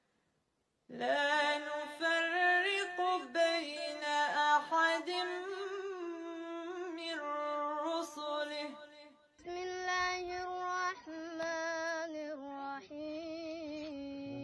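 Melodic Quran recitation in Arabic, chanted by a woman with long held, wavering notes, starting about a second in. After a brief break about two-thirds of the way through, a child's voice takes up the same slow chanted recitation with long sustained notes.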